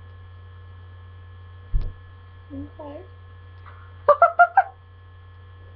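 Steady electrical mains hum on the webcam recording, with a single thump about two seconds in. About four seconds in comes the loudest sound: a girl's quick outburst of four loud, high vocal cries.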